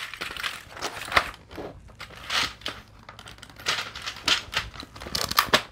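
Plastic case of a computer keyboard being pried and flexed by hand, still stuck shut: a string of irregular clicks and creaks.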